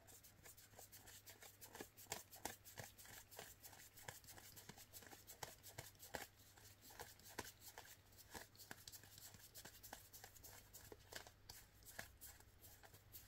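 Faint, irregular rustling and clicking of UNO playing cards and their packaging being handled, several small clicks a second.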